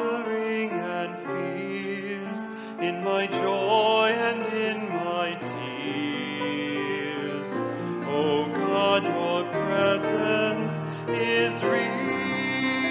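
Instrumental hymn music: a melody over held chords.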